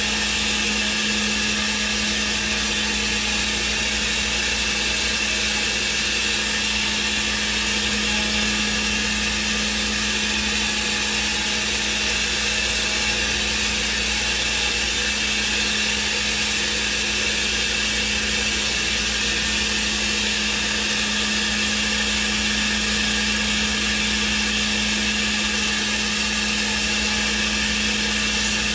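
Thermwood CNC router running steadily, giving a constant hum with a high hiss over it and no breaks or changes.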